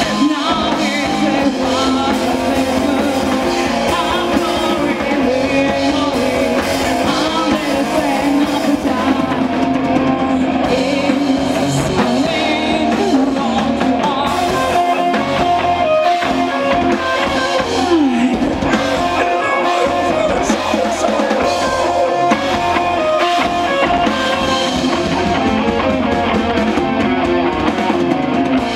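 Rock band playing live, with drum kit and guitars and a woman singing.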